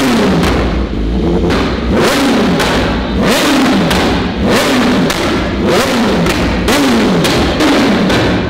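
BMW HP4 superbike's inline-four engine, revved hard in quick repeated throttle blips, the revs shooting up and falling back about every two-thirds of a second.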